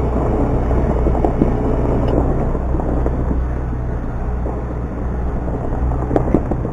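Farm tractor engine running steadily with a low rumble and scattered knocks and rattles, and a steady whine that fades out about two seconds in.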